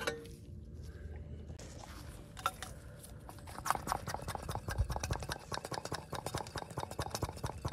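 A sharp metallic click with a short ring as a 9 mm wrench opens the brake bleeder screw on the rear caliper. From about three and a half seconds in, rapid irregular clicking and crackling as the hand vacuum pump is worked, drawing old brake fluid out through the bleeder hose.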